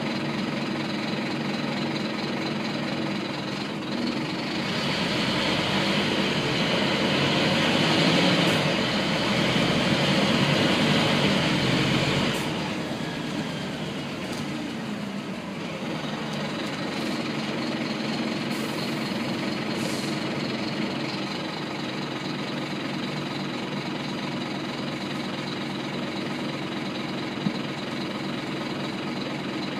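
Scania N230UB bus's five-cylinder diesel engine heard from inside the passenger saloon, running steadily. It grows louder a few seconds in, then drops back about halfway through and settles to an even running sound.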